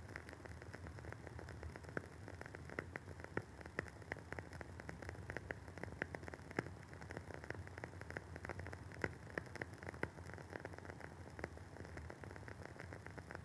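Wooden wick of a WoodWick candle crackling as it burns: an irregular run of quick, soft pops and clicks, several a second, over a faint steady hiss.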